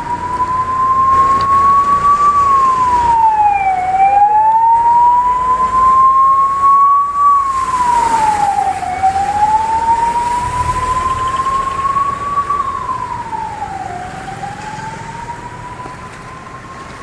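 Ambulance siren wailing, each cycle rising slowly over a few seconds and then dropping quickly, about every five seconds. It is loud at first and grows fainter in the last few seconds.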